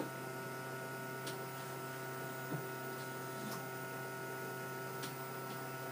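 Steady hum with several steady tones from the home haemodialysis machine running, its pump turning, with a few faint ticks.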